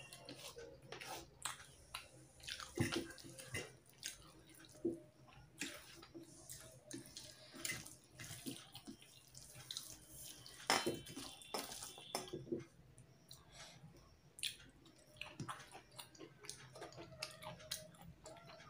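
Wet, squelching sounds of fingers mashing and mixing rice with fish curry on a stainless-steel plate, a run of small irregular clicks and scrapes with two louder knocks against the plate. A faint steady hum of a table fan lies underneath.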